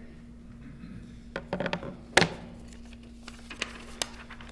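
Paper notes being handled at a lectern, with rustles and clicks and one sharp knock about two seconds in, over a steady low hum.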